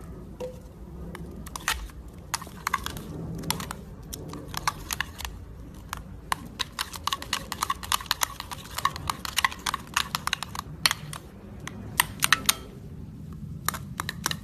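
Metal spoon stirring a crumbly, failed slime mixture in a glass bowl: a rapid run of clicks and scrapes of spoon against glass, thinning out near the end.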